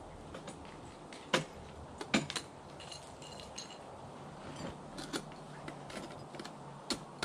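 Ice tools and crampons striking the ice of a frozen waterfall during a climb: several sharp knocks at irregular intervals, the loudest two about a second and a half and two seconds in, with a light metallic jingle of climbing hardware between them.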